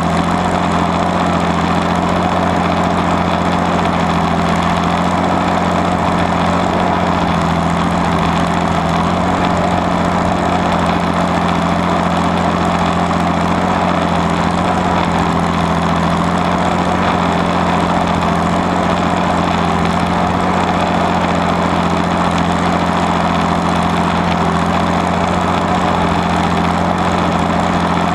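Allis-Chalmers WD45's six-cylinder diesel engine running steadily under load while pulling a plow through stubble.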